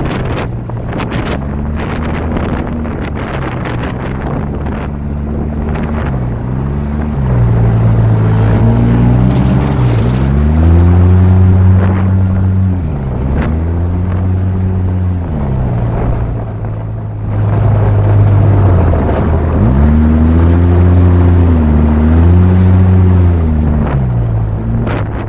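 Polaris RZR 800's twin-cylinder engine driving the vehicle over snow and ice. Its pitch dips and climbs again every few seconds as engine speed falls and picks up through the turns.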